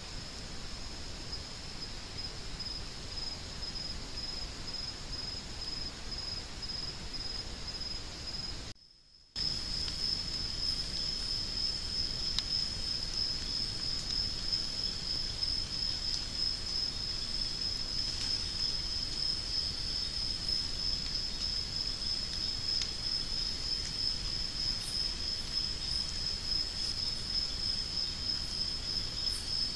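Steady chorus of rainforest insects, a continuous high, finely pulsing trill over the hiss of a camera-trap microphone. About nine seconds in the sound drops out for half a second, and after that a night chorus runs louder, with a second, lower trill under the first.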